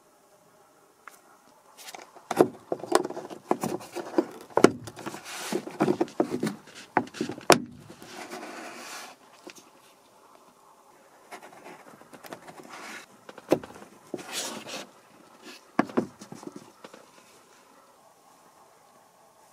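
Plastic clicks, knocks and rubbing from a car's overhead sunglass holder and its hinge fasteners being handled. The sounds come in two busy stretches, each with a few sharp clicks standing out over rustling.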